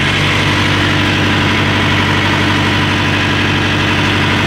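Thermo King Precedent S-700 trailer refrigeration unit's diesel engine running steadily, heard close up, just after starting with its alarm codes cleared.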